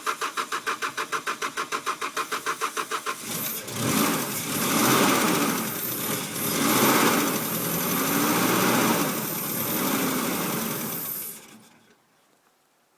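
Mazda B2600i four-cylinder engine cranking on the starter with an even chug, about eight beats a second. About three seconds in it catches and runs roughly, its revs surging up and down for some eight seconds before it dies out. The truck is a no-start whose injectors get no fuel.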